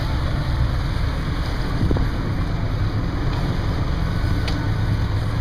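Steady low rumble of a fishing boat's motors running, with wind on the microphone and a couple of faint knocks.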